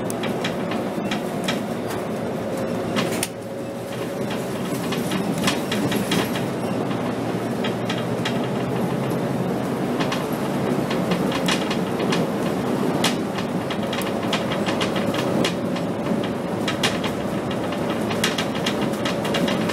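Cabin sound of a Scania K270 diesel city bus under way: engine and drivetrain drone with a steady whine that creeps up in pitch, over constant rattling and clicking from the bus body and fittings. The level dips briefly about three seconds in.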